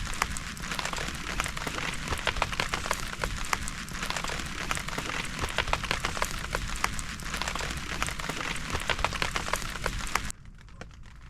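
Heavy rain, with a dense spray of separate drop hits over a steady hiss. It cuts off abruptly about ten seconds in, leaving a much fainter sound.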